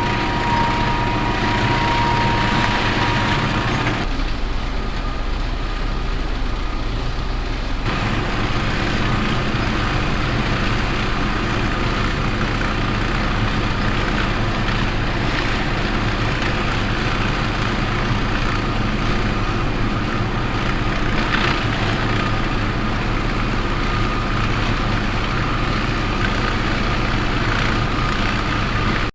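Tractor engine running steadily while pulling a rotary shredder that is cutting grass. Its sound thins for a few seconds about four seconds in, then returns.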